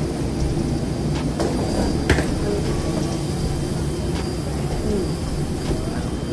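Steady, loud rumbling ambience of an airliner and boarding area, with a few short clicks and knocks.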